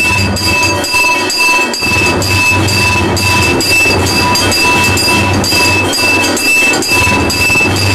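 Temple bells ringing rapidly and continuously during an arati: clear ringing tones over a dense metallic clatter with a steady fast pulse.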